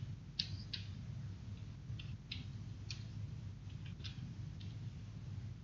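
Computer keyboard keys tapped one at a time: about ten light clicks at an uneven pace as a password is typed, over a low steady hum.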